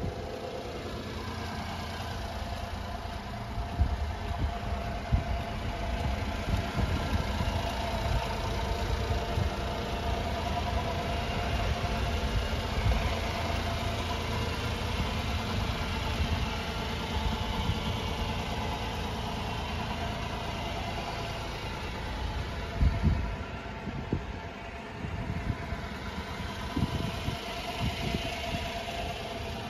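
Honda Acty kei truck's small three-cylinder engine idling steadily, with occasional low thumps.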